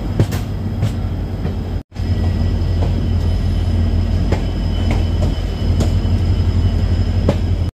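Passenger train rolling slowly into a station: a steady low rumble of the coach's wheels on the rails, with occasional sharp clicks. It breaks off for an instant about two seconds in.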